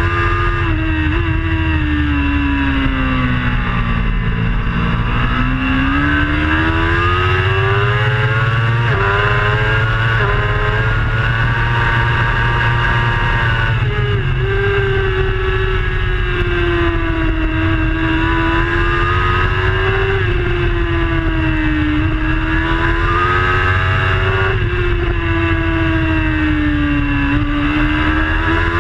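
Racing superbike engine heard from an onboard camera at race pace, its revs climbing and dropping several times through the laps' corners and straights, with a steady low rush underneath.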